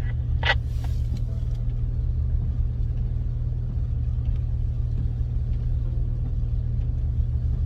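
Jeep Wrangler JK running at low speed off-road, a steady low engine and drivetrain rumble.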